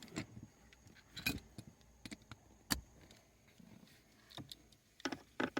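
Irregular metallic clicks and clinks of a ratchet with an extension and 10 mm socket loosening a trim-panel bolt, with a few clicks in quick succession near the end.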